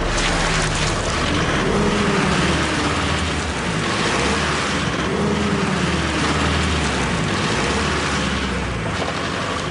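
A light vehicle's engine revving under heavy throttle, pitch rising and falling twice, over a steady hiss as its driven wheels spin on a slippery skid pan without grip: the vehicle is too light to get traction.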